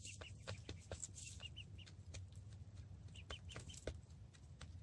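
Buff Brahma hens clucking softly in short runs of two to four quick notes, with scattered light ticks as they peck and scratch in the straw. Faint throughout.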